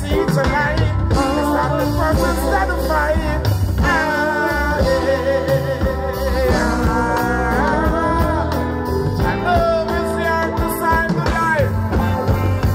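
Live reggae band playing through a stage PA, with a male voice singing over bass and drums and holding long notes in the middle stretch.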